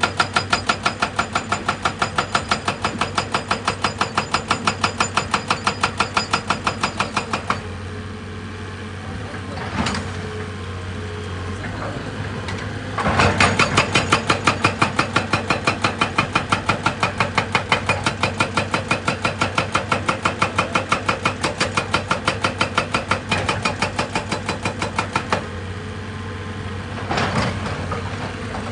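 Rapid, even percussive hammering on rock by a heavy machine, about five blows a second, over a running diesel engine. The hammering stops about seven seconds in and the engine runs on alone with a single knock. It starts again around thirteen seconds, stops near the end, and one more knock follows.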